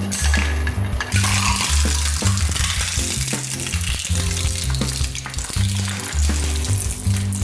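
Twin-shaft shredder's steel cutter blades chewing up a hard clear plastic toy water pistol, a dense crunching and crackling of the plastic breaking. The crackling sets in about a second in and is loudest through the middle.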